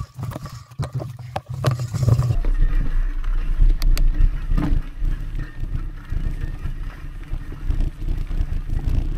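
Mountain bike riding along a dirt forest trail: rattles and knocks of the bike over rough ground. About two seconds in, the sound changes abruptly to a steady low rumble of tyres and wind buffeting the microphone.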